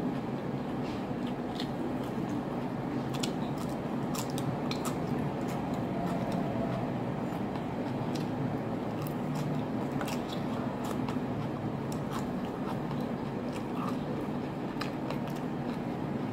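Close-up eating sounds of a person biting and chewing, with scattered short sharp clicks and crackles, over a steady low background hum.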